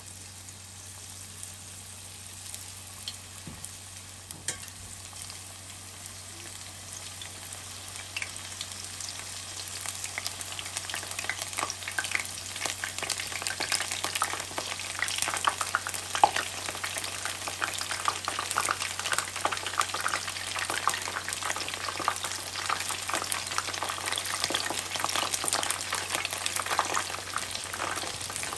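Batter-coated chicken pieces deep-frying in hot oil: a dense crackling sizzle that builds as more pieces go into the pan, loudest in the second half.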